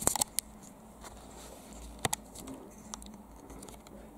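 A few light clicks and knocks over quiet room tone: handling noises as a person settles in front of the camera. The clicks come in the first half-second and again about two seconds in.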